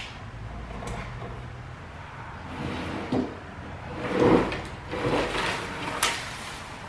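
Rummaging in an attic while getting down an artificial Christmas tree: scraping and rustling of things being shifted, swelling twice in the middle, with two short sharp knocks, the second about six seconds in.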